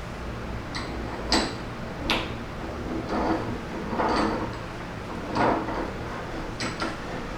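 Irregular metallic clinks, knocks and short scrapes, about eight in all, some with a brief ring, from hand tools and metal fork parts being handled while loosening a thread-locked fork part.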